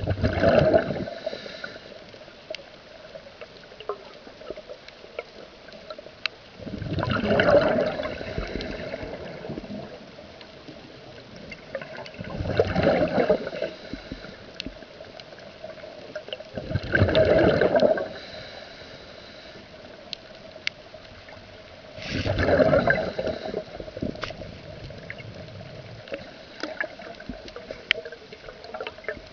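Scuba diver's regulator heard underwater: five bursts of exhaled bubbles about every five seconds, each lasting a second or so, over a steady faint hum.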